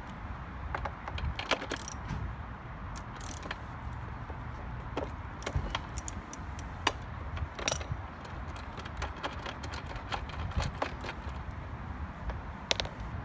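Scattered metallic clicks and clinks of a spark plug wrench being fitted and turned on the spark plug of a 25 cc leaf blower engine that is not running.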